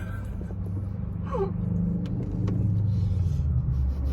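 Low, steady car engine rumble that grows louder about two seconds in, with a brief squeaky vocal sound about a second in.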